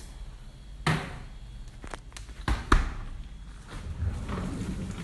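A few sharp knocks and thuds of household handling at a refrigerator: one about a second in, then two in quick succession near the middle.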